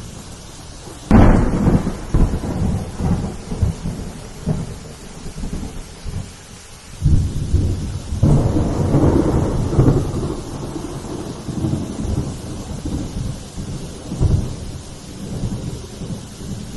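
Steady rain falling through a thunderstorm: a sudden clap of thunder about a second in, rumbling away over several seconds, then a second rolling rumble that starts about seven seconds in, swells and slowly fades.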